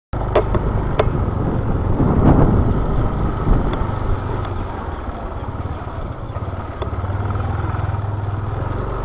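Motorcycle engine running at low speed while the bike is ridden, heard from a camera mounted on the bike. A few sharp clicks come in the first second.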